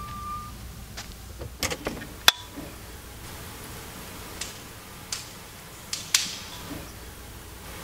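A door being handled: a string of irregular clicks and knocks, the sharpest a latch-like click a little over two seconds in and another about six seconds in, over a steady low hum.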